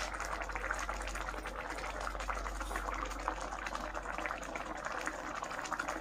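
Thai green curry of pork in coconut milk simmering in a pan, a steady fine bubbling and crackling. The coconut milk has been cooked down until its oil has separated.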